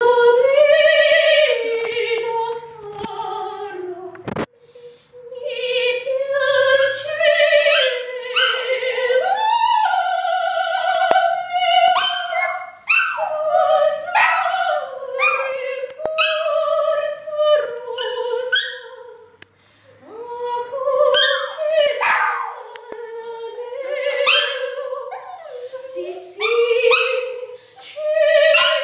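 A woman sings opera in full operatic voice while her small terrier-cross dog howls along with her. The sung line breaks off briefly twice.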